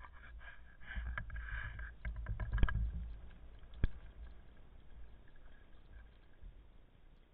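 Muffled underwater swishing and rumbling of a diver moving in the water, heard through an underwater camera housing, with a run of small clicks and two sharp clicks at about two and a half and four seconds in, then fading.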